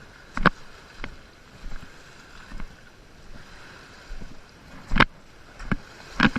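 Irregular sharp knocks and slaps, about eight of them over a faint steady hiss, the loudest about half a second in and twice near the end.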